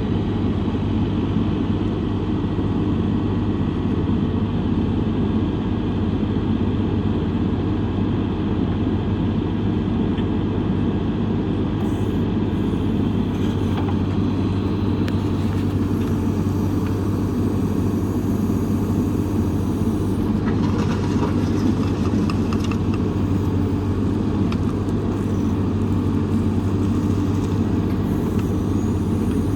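John Deere 410K loader backhoe's diesel engine idling steadily, with no revving, and some faint light rattles and clicks in the second half.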